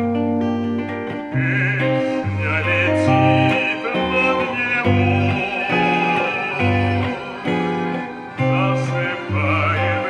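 Electric guitar played with a pick, a tune over a bass line that changes note about every half second to a second, with a wavering high line at times.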